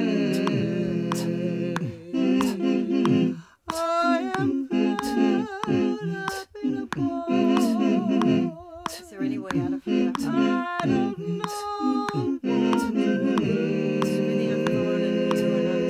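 Multi-tracked a cappella voices humming wordless, held chords, raw and without reverb. From about two seconds in, the chords break up into a gliding wordless vocal line over short clicks that keep a beat. Full hummed chords return about two-thirds of the way through.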